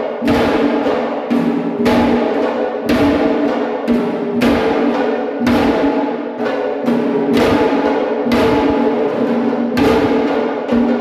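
Loud drumming, with heavy strikes coming about one or two a second over a steady ringing tone.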